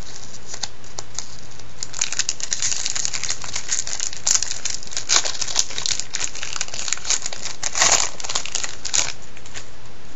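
Foil wrapper of a 2002 Topps Total baseball card pack crinkling and tearing as it is ripped open by hand: a run of sharp crackles starting about two seconds in, loudest a little before the end.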